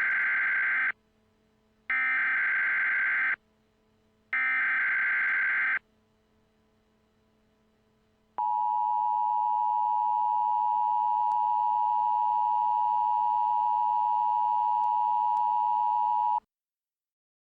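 Emergency Alert System tones. First come three short bursts of SAME header data at an even spacing. After a pause of about two and a half seconds, the steady two-tone EAS attention signal sounds for about eight seconds and then cuts off sharply.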